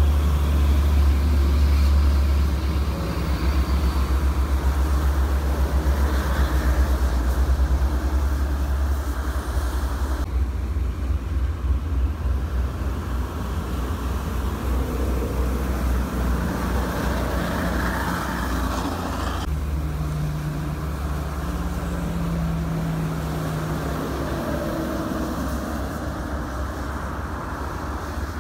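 Toll-road traffic passing: trucks, buses and cars driving on wet asphalt, a steady tyre hiss over a low engine rumble. The mix changes suddenly about ten and about twenty seconds in.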